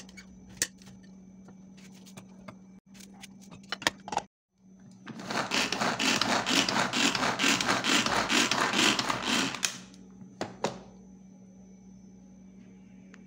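Manual pull-cord food chopper chopping onion and calabresa sausage: a loud, rapid whirring rattle for about five seconds as the cord is pulled over and over. A few clicks and knocks come before and after it.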